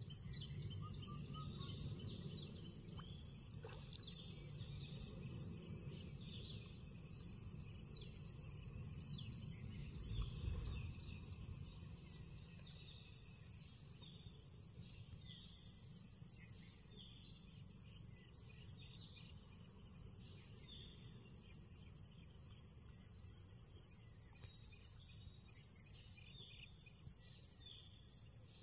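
Insects chirping steadily in a high, fast-pulsing trill, with short falling chirps repeating about once a second, over a low outdoor rumble. A brief louder low thump comes about ten seconds in.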